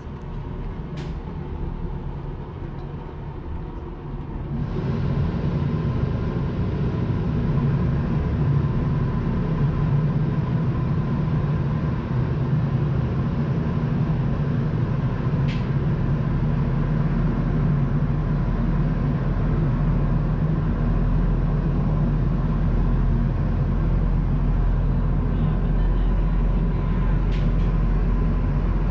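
Passenger boat's engine running with a steady low drone, growing louder about four seconds in as the boat gets under way and then holding steady.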